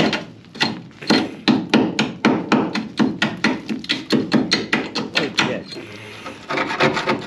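A hammer striking the rusted steel underbody of a Mercedes 609D van in quick succession, about three blows a second, knocking loose rust scale. The blows stop near the end, and a short rougher rasping noise follows.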